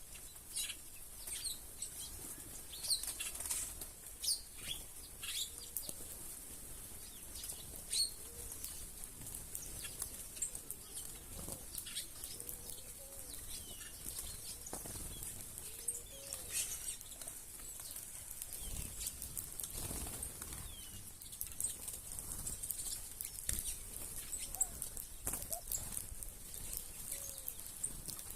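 A crowd of birds feeding on the ground, wings flapping again and again as they fly in, take off and jostle, with scattered short chirps and brief low calls among them.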